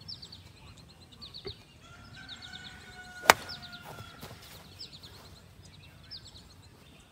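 A golf iron strikes the ball once, a single sharp click about three seconds in, sending it low along the ground as a worm burner. Birds chirp in short repeated trills throughout.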